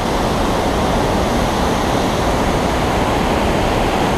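Steady rushing of a shallow river rapid close by, whitewater running over rocks with an even, unbroken hiss.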